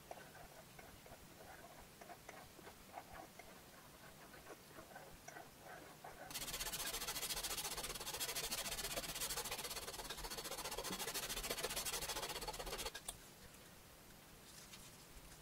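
Sanding block rubbed rapidly back and forth along the edge of a leather wallet panel: a dense, steady sanding noise that starts about six seconds in and stops sharply some seven seconds later. Before it there are only faint light ticks of hands and a tool on the leather.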